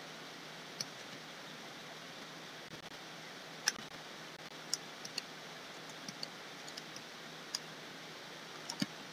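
Scattered single clicks, about eight in all and irregularly spaced, over a steady low hiss: the input clicks of a computer drawing setup in use during digital painting.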